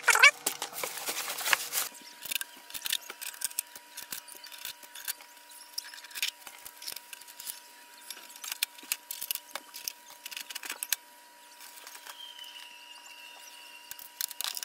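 Unboxing handling sounds from a printer and its packaging. A short rustle of paper and packing comes first, then scattered light clicks, taps and rustles as parts are lifted out and handled.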